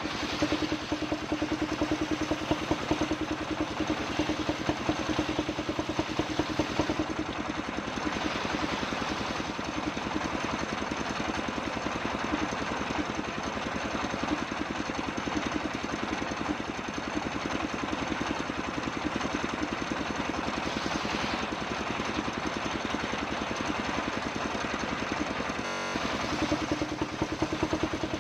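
Engine of a homemade circular sawmill running steadily with a fast, even beat.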